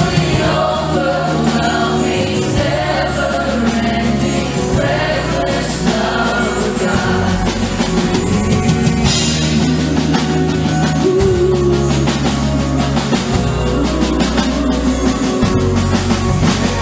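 Live worship band playing a rock-style worship song, with held bass notes, drums and singing over it.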